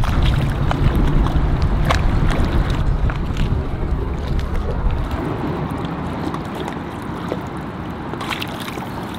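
Wind buffeting the microphone and water lapping and sloshing against a small boat's hull, with scattered small clicks. The low rumble is strongest for the first several seconds, then eases.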